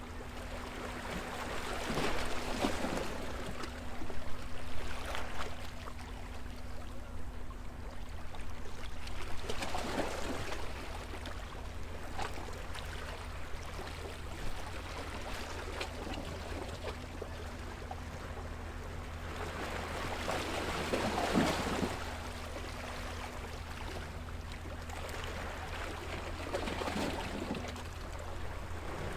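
Small sea waves washing against a stone seawall, surging and draining back at irregular intervals every few seconds, over a steady low hum.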